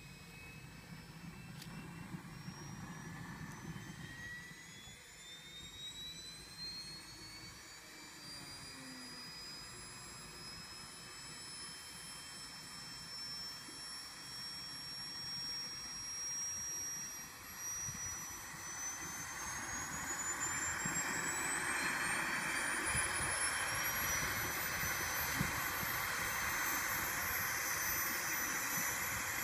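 Eurocopter EC135 twin turboshaft engines starting up: a turbine whine climbs steadily in pitch, climbs faster later on and levels off near the end, with a rushing noise that grows louder as the engines spool up and the rotor comes up to speed.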